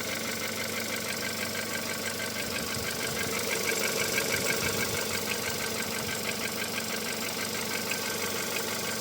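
Volkswagen CFNA 1.6-litre four-cylinder petrol engine idling with a running noise and knock that the owner cannot place and asks what needs repairing. It gets a little louder for a couple of seconds about three seconds in, then settles back.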